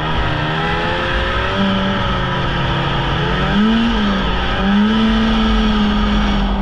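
Polaris Indy snowmobile engine running under way, its pitch shifting with the throttle: a brief rise and fall about three and a half seconds in, then climbing again and holding steady.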